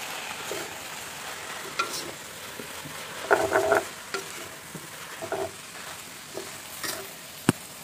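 A wooden spatula tossing and stirring noodles with vegetables in a large metal pot over a steady frying sizzle. The spatula scrapes and clatters against the pot at irregular moments, most busily about three seconds in, with one sharp knock near the end.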